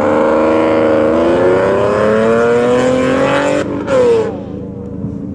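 Ford Mustang engine pulling hard under acceleration through an autocross course, its pitch climbing for about three and a half seconds. It then drops away sharply as the driver lifts off, with a brief loud falling note just after, and settles to a lower steady drone.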